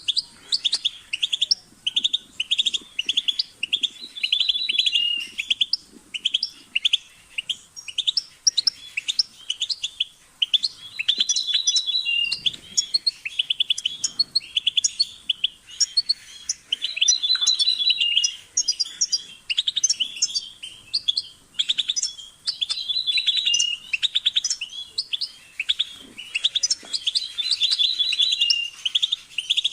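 European goldfinch singing: fast twittering notes and rattling trills in phrases of a second or two, split by short pauses.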